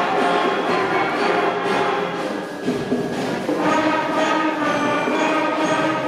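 Student concert band of flutes, clarinets and other wind instruments playing together in held chords, moving to a new chord about halfway through.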